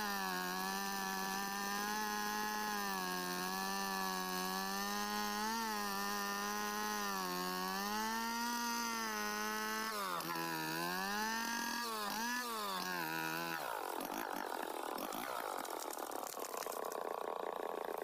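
Big two-stroke chainsaw running under load in the felling cut through a santol trunk, its engine note wavering slightly. About ten seconds in, the note dips and rises several times as the cut finishes. About fourteen seconds in, the engine note gives way to a long crashing rustle of the tree falling through branches and undergrowth.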